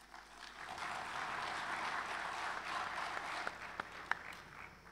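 Audience applauding at the close of a speech: the clapping builds within the first second, holds, then dies away, with a few last single claps near the end.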